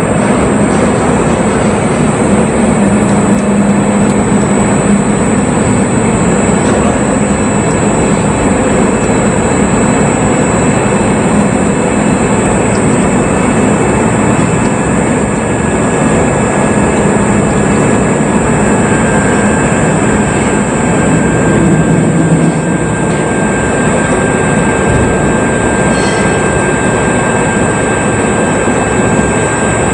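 Steady loud roar of fluid being pumped under pressure through a circulation sub's bypass valve on a test rig, with a thin high whine over it throughout.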